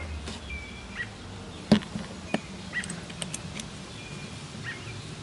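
A few sharp clicks and taps as small screws and a small cast-metal jointer part are handled by hand, the loudest about a third of the way in. Short bird chirps come and go in the background.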